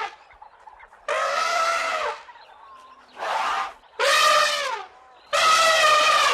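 An animal calling four times in a row. Each call is loud and pitched, lasts under a second and drops in pitch at its end, with short gaps between.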